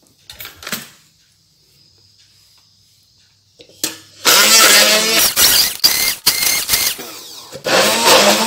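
Handheld stick blender grinding chopped chilies, shallots and garlic with a little oil into a spice paste in a plastic beaker. After a few quiet seconds with light handling clicks, the motor starts about four seconds in, rising in pitch as it spins up. It runs for about three seconds, stops briefly, then runs again for about two seconds near the end.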